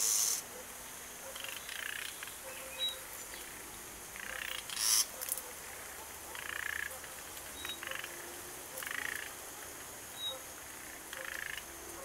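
Frogs croaking in short repeated calls, roughly one every two seconds, with a few faint high chirps between. Two brief, louder noises come at the very start and about five seconds in.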